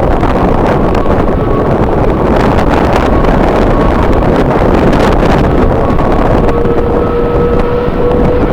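Strong wind buffeting the microphone in gusts, a dense low rumble. About six and a half seconds in a faint steady whine comes in underneath.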